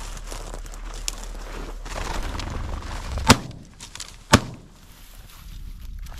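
Two shotgun shots about a second apart, fired at a covey of quail flushing from the brush.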